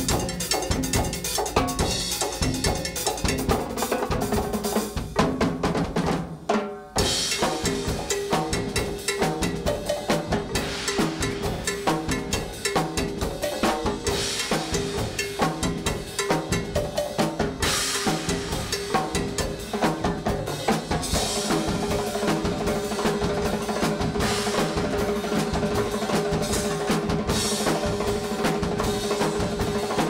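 Live percussion ensemble playing a fast, dense rhythm on drum kit, brass timbales with cowbells, and a large painted drum struck with a mallet. The playing drops off briefly about six seconds in, and a steady low tone sounds under the drums in the second half.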